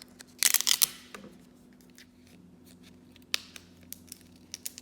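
Transfer tape being peeled off a vinyl decal's backing sheet: a short crackly peel about half a second in, then a few faint light clicks and rustles.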